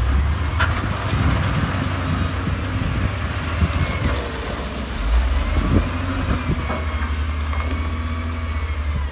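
Heavy diesel engine of construction machinery working: a deep, steady rumble with the engine pitch rising and falling, and a few short knocks.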